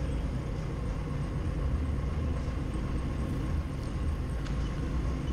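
Doosan 4.5-ton forklift's engine running steadily, heard from inside the cab as the forklift manoeuvres: an even low rumble.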